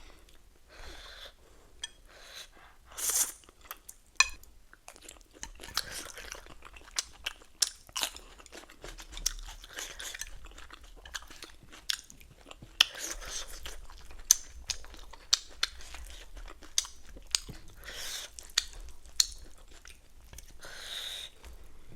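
A person chewing and crunching on ramen noodles, pork and lettuce close to the microphone, with many sharp wet mouth clicks and a few longer noisy eating sounds.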